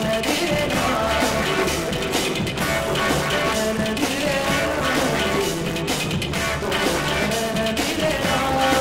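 Rock-style band music, drum kit and guitars playing at a steady, even level.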